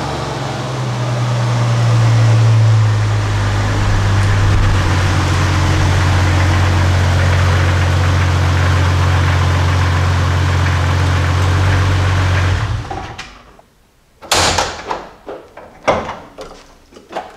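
1999 Jeep Cherokee's 4.0 L inline-six running steadily, a little higher for the first few seconds, then shut off about 13 seconds in. The engine has a leaking one-piece exhaust manifold. After a short quiet, a loud thud like a car door comes, then clunks as the hood is opened near the end.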